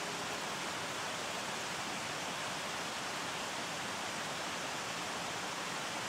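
Mountain waterfall rushing steadily as it cascades down a rock face into a rocky stream: an even, unbroken hiss of falling water.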